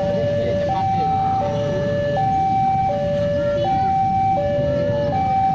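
Railway level-crossing warning alarm sounding an electronic two-tone hi-lo signal, the higher and lower notes alternating about every three-quarters of a second, over a low background rumble.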